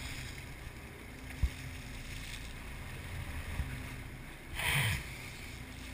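Engines of a 57-foot Bertram sportfishing boat running steadily, with water rushing and splashing along the hull and wind on the microphone. A single short thump about a second and a half in, and a brief louder rush of water about two-thirds through.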